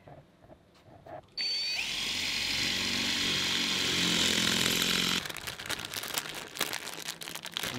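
A cordless drill starts about a second and a half in and bores a hole into a painted wall, running steadily for about four seconds before stopping abruptly. A plastic bag of wires is then handled, crinkling and crackling.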